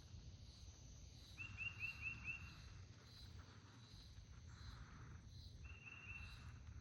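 Quiet outdoor ambience: a bird gives two quick runs of about five short, repeated chirps, about a second and a half in and again near the end, over faint, evenly spaced higher pips and a low, steady background hiss.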